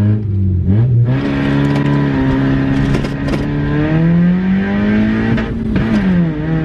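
Honda Civic EJ9's engine and worn exhaust heard from inside the cabin, accelerating, with a gear change about a second in, the pitch then holding and slowly climbing before dropping near the end. The exhaust back box is corroded and its baffles have fallen out, which makes it sound awful inside the car.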